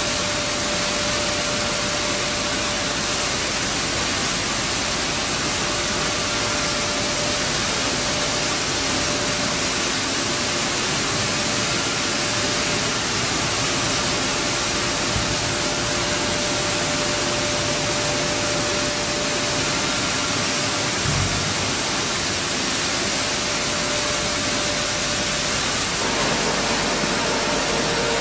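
Machinery of a running stone flour mill plant: a steady, loud hiss of air and machine noise with a constant whine that shifts lower near the end.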